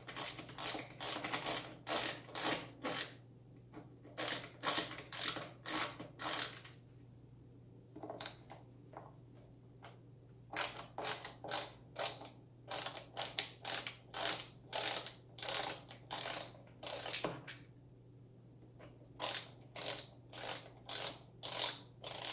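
Ratcheting screwdriver clicking at about three clicks a second, in runs broken by short pauses, as T20 Torx bolts are backed out.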